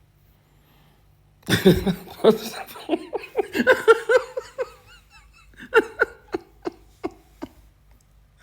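A person laughing heartily, starting about a second and a half in, then tailing off into a string of short, separate laughs.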